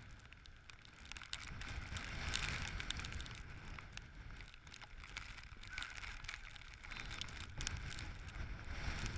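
Wind rumble and rubbing on a chest-mounted GoPro as the wearer moves about the pitch, with many small irregular clicks and taps.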